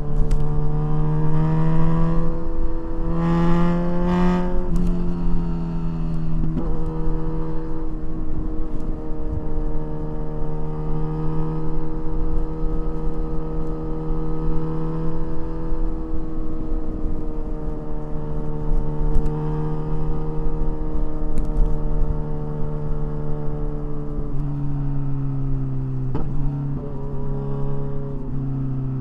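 Kawasaki Ninja 1000SX inline-four engine through a de-catted aftermarket exhaust, under way on the road. The revs climb for the first few seconds, then settle to a steady cruise and drop lower near the end, over a constant low rush of wind.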